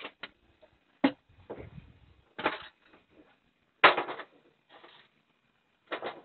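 Plywood pieces being handled and set in place: a series of separate sharp knocks with short scrapes between them, the loudest about four seconds in.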